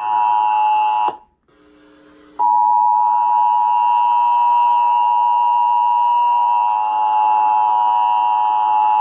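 Emergency Alert System attention signal: a steady two-tone alert tone sounding for a Required Monthly Test. It breaks off about a second in and comes back about a second and a half later.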